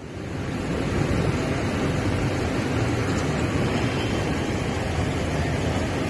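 Steady rushing noise of fast-flowing floodwater from a swollen river, coming up over the first second and then holding even.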